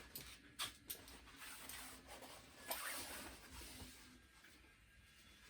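Faint rustling and a few small clicks, then near silence.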